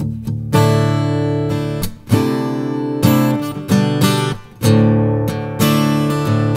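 Tombstone 430 NAT acoustic guitar being played: chords strummed and picked in a steady flow, with short breaks between phrases about two seconds in and again around four and a half seconds in.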